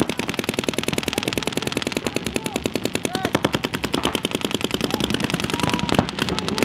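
Several paintball markers firing rapid, overlapping streams of shots at once, a dense continuous rattle of pops that never stops.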